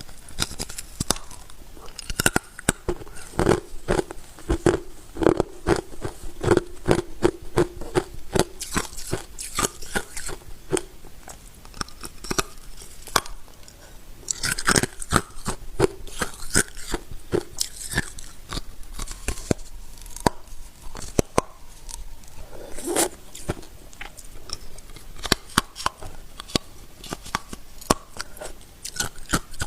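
Ice being bitten and chewed close to the microphone: a dense, irregular run of hard crunches and cracks, several a second.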